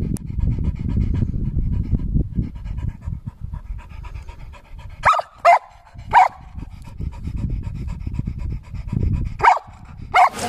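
A dog panting heavily with rapid breaths. About five seconds in it gives short, sharp barks, three close together and then two more near the end.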